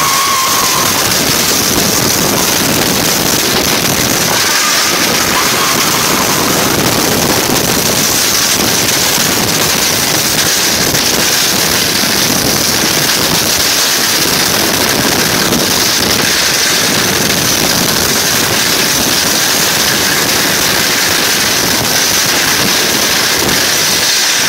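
GCI wooden roller coaster train running at speed over its track, under loud, steady wind rushing over a phone microphone.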